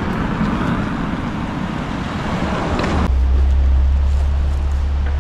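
Vehicle and street noise. About three seconds in, the sound changes abruptly to a steady low hum.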